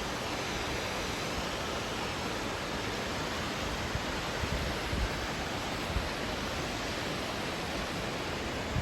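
Steady rushing of flowing water, a gorge stream or waterfall, with a few low thumps in the second half.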